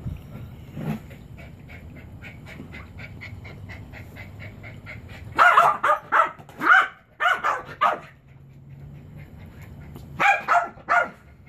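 A Chihuahua barking in short sharp barks. A run of about six comes a little past halfway, and about four more near the end.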